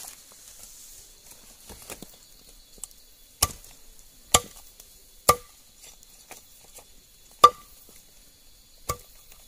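Large machete-style knife chopping roasted meat against a split bamboo lying on banana leaves. There are five sharp chops, roughly a second or two apart, starting a little over a third of the way in, and the fourth is the loudest.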